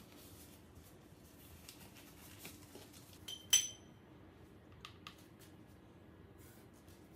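A glass lid clinks once against glass or metal about three and a half seconds in, with a short bright ring. Quiet handling noise surrounds it, and two light ticks follow about a second later.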